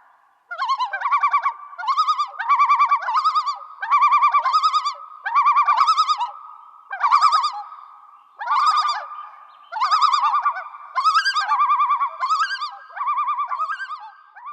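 Warbling, bird-like whistled trills, repeated in about a dozen short bursts.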